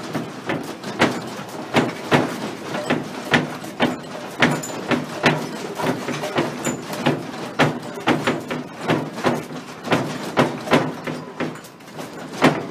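Sliding glass windows, doors and fittings of a house rattling and knocking irregularly, several knocks a second, as the building shakes in a strong earthquake.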